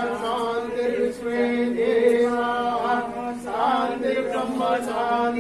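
A group of voices chanting a Hindu devotional mantra together in long, held notes.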